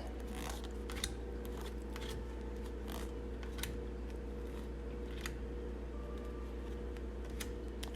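Tarot cards being handled and laid down one at a time: a few scattered light clicks and slides of card on card, over a steady low electrical hum.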